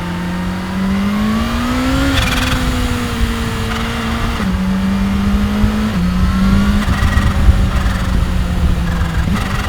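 A 2015 Kawasaki Ninja H2's supercharged inline-four engine under way. It revs up over about a second, then drops in pitch twice, at each of two upshifts, and runs on steadily, with a low rumbling noise underneath.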